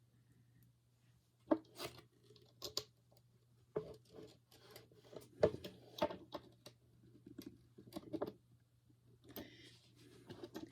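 Scattered light clicks, taps and rustling from handling longboard truck mounting hardware (small bolts and nuts) and tools, with a low steady hum underneath.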